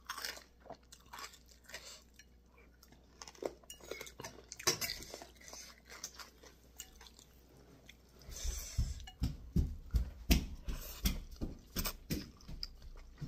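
Wet chewing and lip-smacking while eating boat noodle soup, with short slurps of noodles and broth. The sounds come denser and louder in the last few seconds as a forkful of noodles is sucked in.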